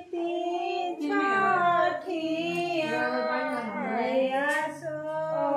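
Several women's voices singing a Chhath devotional song together, in long drawn-out held notes.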